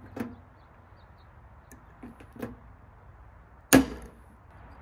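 Hand pop rivet gun being squeezed on a pop rivet: a few light clicks from the handle and jaws, then one loud sharp snap nearly four seconds in as the rivet's mandrel breaks off. The rivet is too small for the hole and pulls through instead of holding.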